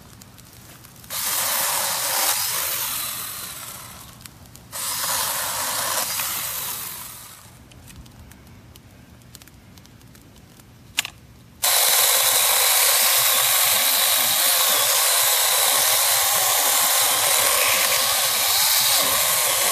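Cordless 21-volt SeeSii mini chainsaw with a 6-inch bar, its chain cutting into dry dead wood. It runs in two short bursts, about a second in and about five seconds in, each fading away, then runs steadily from about twelve seconds in, with a thin motor whine over the rasp of the chain.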